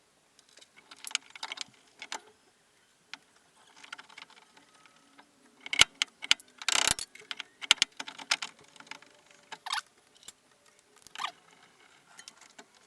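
Metal clinks and knocks of bolts and suspension parts being handled while bolts are fitted through a ball joint on a car's lower control arm, with a burst of louder knocks and rattles about six seconds in.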